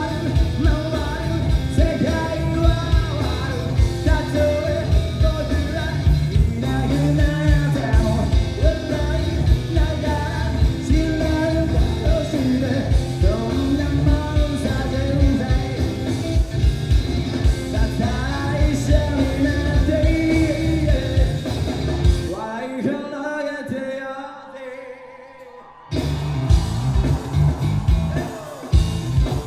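Live rock band with drums and bass, and a male singer on top. About 22 seconds in, the band drops out and the music thins to a near pause for a few seconds, then the full band comes back in.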